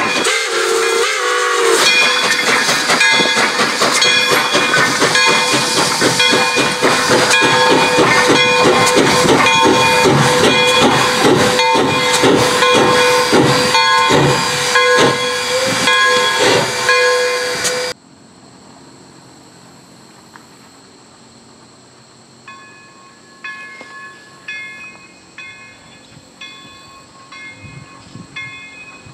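Pere Marquette 1225, a 2-8-4 Berkshire steam locomotive, passing close at speed. Its whistle is held for most of the pass over hissing steam and exhaust beats about twice a second. About 18 seconds in it cuts to a much quieter, distant train approaching.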